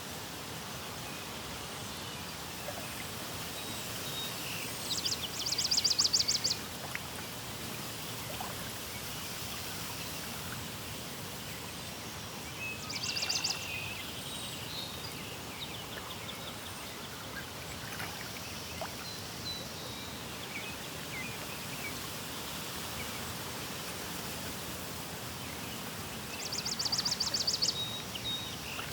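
Birdsong over a steady background hiss: a bird sings a high, rapid trill of repeated notes three times, with scattered short chirps in between.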